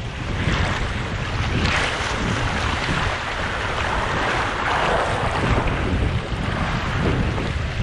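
Rushing, splashing water with wind buffeting the microphone, swelling and easing in loudness.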